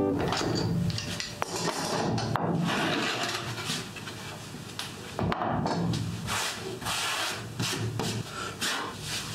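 Workshop handling noise: a couple of sharp wooden knocks as a particleboard router template and its clamp are taken off a wooden benchtop, then a hand brushing wood chips out of the freshly routed recess in repeated rubbing strokes.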